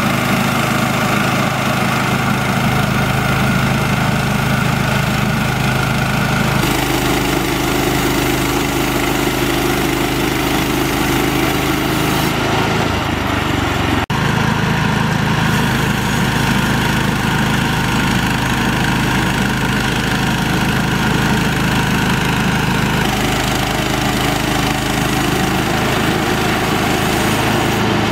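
Engine of a WoodMaxx SM-26e portable band sawmill running steadily while the saw head makes a pass along a log. Its tone shifts abruptly a few times.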